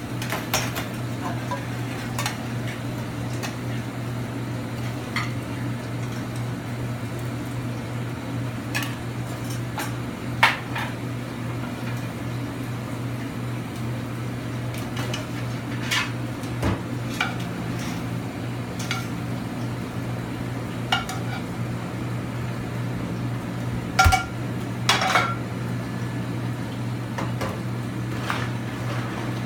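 Scattered clinks and clatters of china plates, a metal sauté pan and tongs being handled during plating, the loudest a few sharp knocks near the end. Under them runs the steady low hum of a commercial kitchen's exhaust hood and ventilation.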